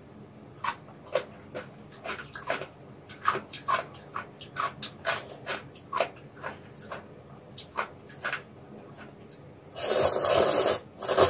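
Close-up eating sounds: a run of short wet chewing and lip-smacking clicks, then a loud slurp of noodles lasting about a second near the end.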